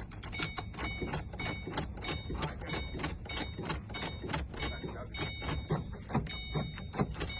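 Rapid, even clicking, about four a second, under a repeating electronic chime of short beeps, from inside a 2006 Ford Mustang while its key and remote are being programmed.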